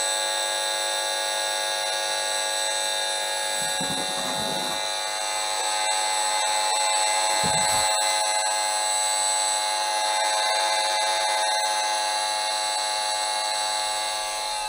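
Esmog Spion 5G EMF meter's audio output turning the electric field it picks up from a computer monitor into a steady electronic buzz made of many high tones, growing a little louder about halfway through. Two brief low rumbles come about four and seven and a half seconds in.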